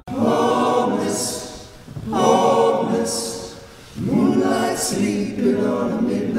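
Men's a cappella choir singing three short phrases, each sweeping up in pitch at its start and each followed by a hissed consonant.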